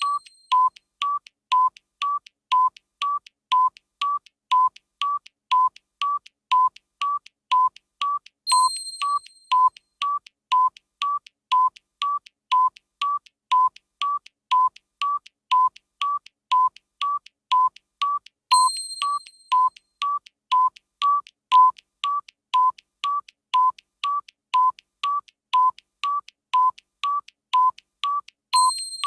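Timer sound effect ticking: short electronic tick-tock tones about twice a second, alternating between two slightly different pitches. A higher ringing ding marks roughly every ten seconds.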